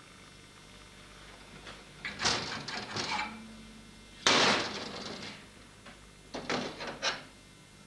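Steel tools and bar knocking and clattering against a steel-topped workbench and vise in three bursts, with one sharp clank a little past the middle the loudest.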